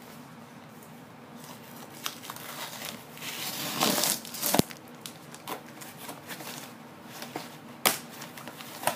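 Small cardboard subscription box being opened by hand, with packing material crinkling and rustling. Quiet at first, it builds to a loud crinkling a few seconds in, with a sharp click about four and a half seconds in and another near the end.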